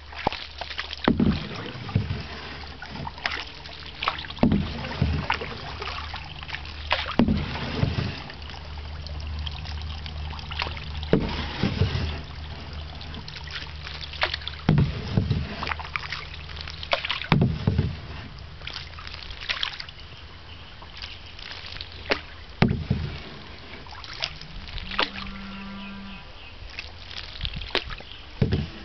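Canoe paddling: a wooden paddle dipping and pulling through calm water, each stroke a splash and swish every few seconds, sometimes two close together, over a low steady hum. A short steady hum-like tone sounds near the end.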